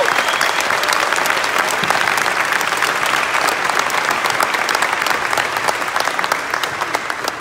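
Audience applauding with dense hand claps, gradually dying down toward the end.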